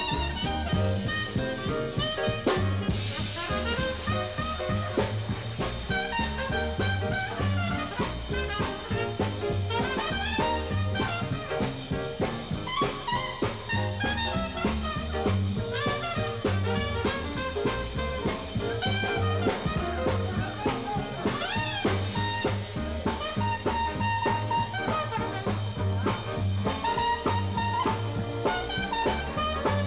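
Live jazz band playing swing: clarinet leads at first, then trumpet, over bass and drum kit keeping a steady beat.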